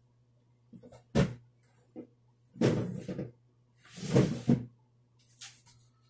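Handling and rummaging noises: a sharp knock about a second in, a small click, then two longer scraping, rustling noises around three and four seconds in, over a steady low hum.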